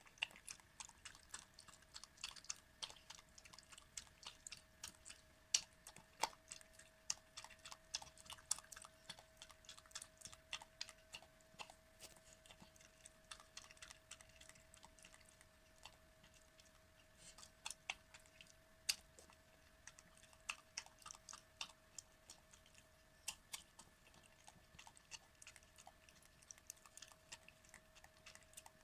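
Elderly miniature dachshund eating soft homemade food: a quiet, irregular run of small wet clicks from chewing and mouthing the food, over a faint steady hum.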